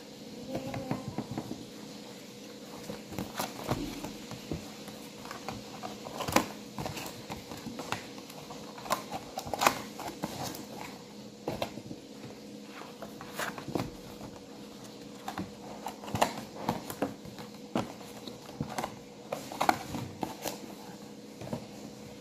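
Paperboard takeaway box being folded and creased by hand, with irregular taps and crackles of card against the table, over a steady faint hum.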